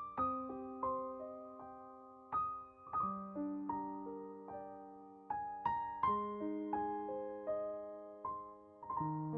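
Slow, gentle background piano music. A new low chord is struck about every three seconds, with single higher notes picked out between them, each note left to ring and fade.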